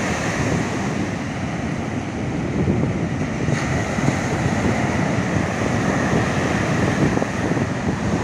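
Waves breaking on the shore and wind blowing on the microphone, a steady rushing noise.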